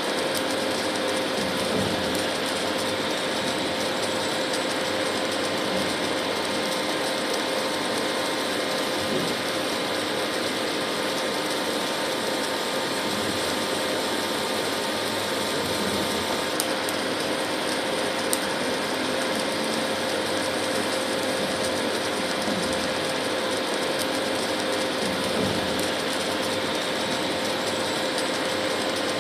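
Induction cooktop running: a steady electrical hum and buzz at a fixed pitch over a hiss, with a couple of small clicks past the middle.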